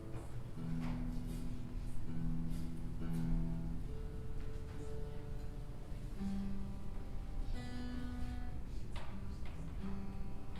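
Instrumental music: acoustic guitar playing slow held chords that change every second or two, with an occasional strum.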